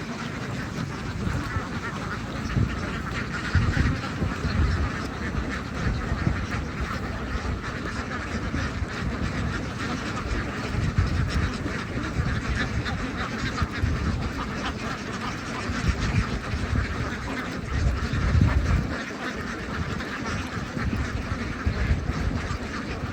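A large flock of domestic ducks quacking continuously, many calls overlapping into a dense chatter, with irregular low rumbles underneath.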